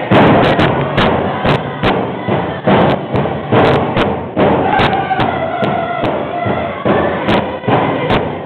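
Drum beaten roughly twice a second for a round dance, with voices singing a chant over it.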